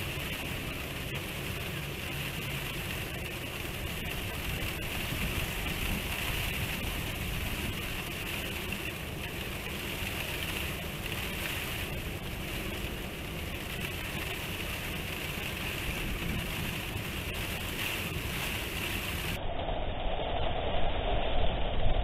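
Typhoon wind and rain: a steady rushing hiss, with gusts hitting the microphone and rumbling louder near the end.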